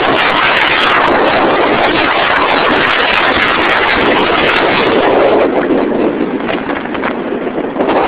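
Steady loud rushing of wind and road traffic, easing slightly in the last couple of seconds.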